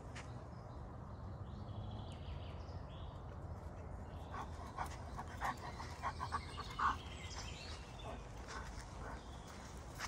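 Greater Swiss Mountain Dog panting in a quick run of short breaths from about halfway through, close to the microphone. Footsteps crunch on a dirt forest path throughout.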